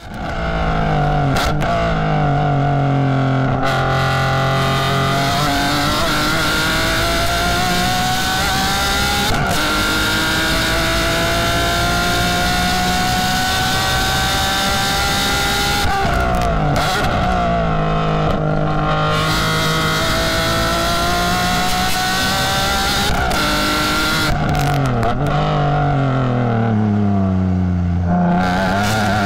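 BMW E46 M3's S54 straight-six at high revs on track, heard from inside the stripped race-car cabin. Long pulls rise slowly in pitch, and the pitch drops and bends around the middle and again near the end as the car brakes and downshifts for corners.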